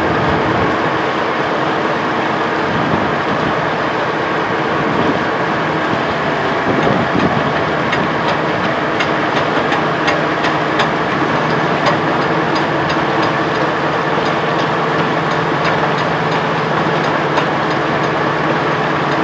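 The ferry's engine runs steadily while the boat is under way. About halfway through there is a short run of light, sharp clicks.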